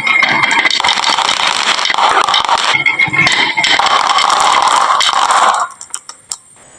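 Many glass marbles rolling and clattering down a wooden marble run slope in a dense, continuous rattle. It stops abruptly about five and a half seconds in, leaving a few separate clicks.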